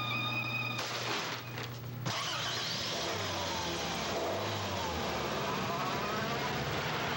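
A car driving toward the listener: steady engine and road noise, with the engine's pitch sliding down and then back up partway through.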